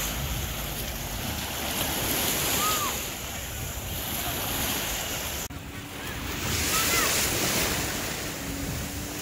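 Surf washing on the shore with wind buffeting the microphone. There is a brief drop about five and a half seconds in, and after it a faint, steady motor hum.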